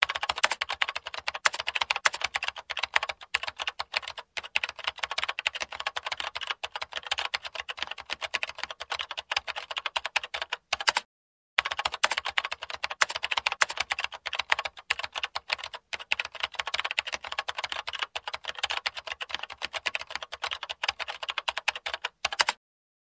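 Rapid keyboard typing clicks, a typing sound effect, with a short pause about eleven seconds in.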